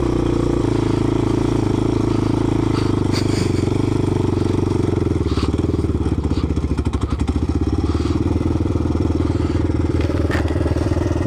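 ATV engine running steadily under a rider. About five seconds in, its note drops into a rapid, even putting, with a few light clicks along the way.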